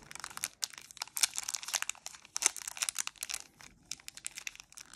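A 1993 Donruss baseball card pack's foil-lined wrapper crinkling as fingers work at its crimped end to open it, in quick irregular crackles.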